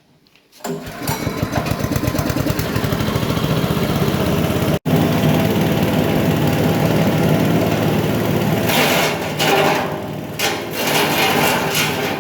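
Patchouli leaf-and-twig chopper machine starting up about a second in and running steadily with a rapid motor beat. The sound cuts out for an instant near the middle, and a few uneven louder surges of rattling noise come near the end.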